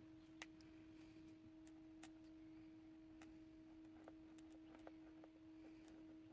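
Near silence: a faint steady hum, with a scattering of faint ticks from a paint marker writing on paper.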